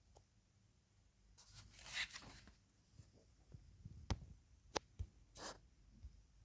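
Faint handling noises: a rustle about two seconds in, then a few sharp clicks and a short rustle near the end.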